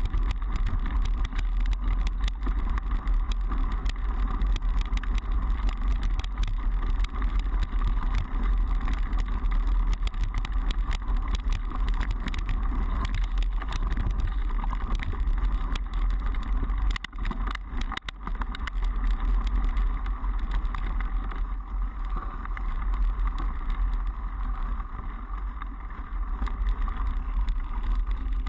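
Mountain bike ridden along a dirt trail, heard through a GoPro action camera: a steady low wind rumble on the microphone with rattling and many clicks from bumps in the trail. The level eases briefly about two-thirds of the way through.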